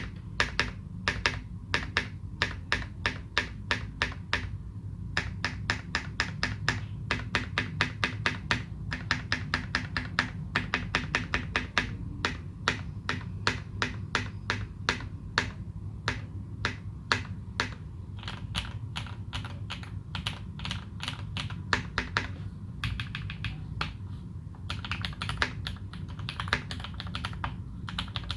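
Typing on a Leopold FC660M mechanical keyboard with modded Cherry retooled Black linear switches and GMK Dolch keycaps: a steady run of keystroke clacks, several a second, some strokes louder than the rest, over a faint low hum.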